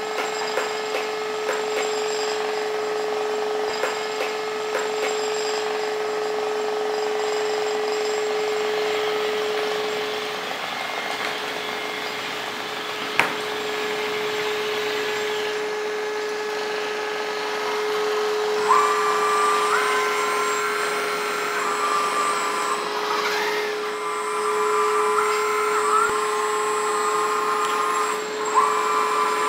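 Electric hydraulic pump of a 1/14-scale LESU Komatsu PC360 RC excavator running with a steady whine, with one sharp click about 13 seconds in. From about two-thirds of the way through, higher whining tones step up and down in pitch as the boom and grab are worked.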